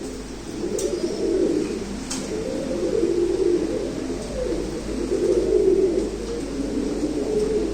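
Domestic pigeons cooing, one low rising-and-falling coo after another with no break. Two faint clicks come about one and two seconds in.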